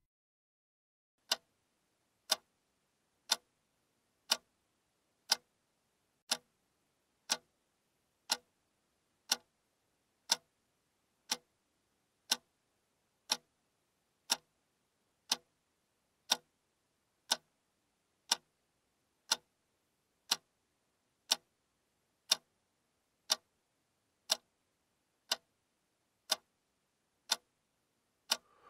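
A clock ticking steadily, one sharp tick a second, starting about a second in. A faint soft noise comes near the end.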